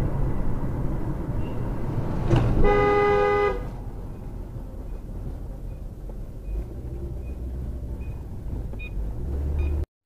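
Car horn sounding once for about a second, over the road and engine noise heard inside a moving car. After the honk the road noise is quieter as the car slows.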